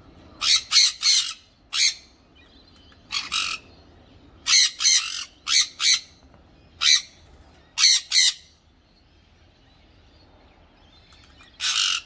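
Sun conures calling with short, harsh squawks, mostly two or three in quick succession. The calls stop for about three seconds before one last squawk near the end.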